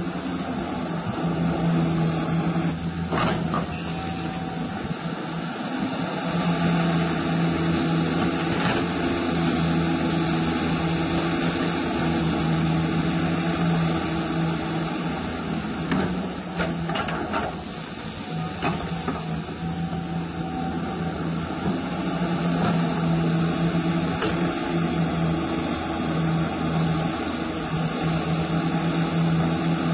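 Hydraulic pump of a radio-controlled CAT 336 excavator model running with a steady hum, swelling and easing as the boom and bucket are worked. A few short clicks and knocks come through as the bucket digs into the soil.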